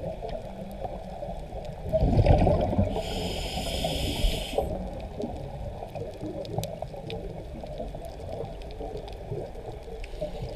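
Scuba diver breathing through a regulator underwater: a rush of exhaled bubbles about two seconds in, then a hissing inhale lasting under two seconds. Faint scattered clicks run underneath.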